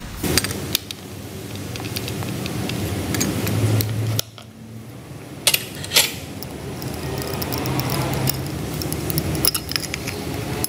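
Light metallic clinks and taps as the side cover of an inline PE diesel injection pump is unfastened and lifted off. A few sharper clicks come in the middle and near the end, over a steady low hum.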